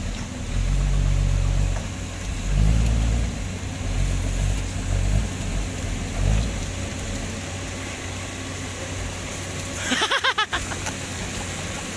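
Toyota Land Cruiser hardtop loaded with oil palm fruit bunches, its engine revving in repeated bursts as it works through deep mud, then running steadier and fainter as it pulls away. A brief fluttering noise about ten seconds in.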